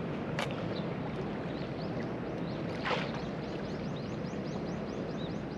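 Steady outdoor wash of water and wind at the waterside. From about halfway through comes a fast, even run of small high chirps, about four a second.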